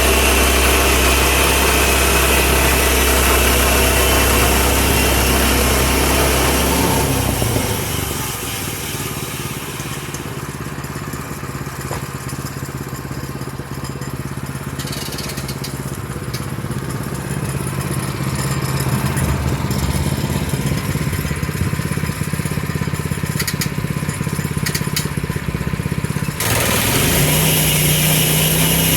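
Gas engine of a Woodland Mills portable band sawmill running steadily. About seven seconds in the sound turns abruptly quieter and lower, and it comes back louder near the end.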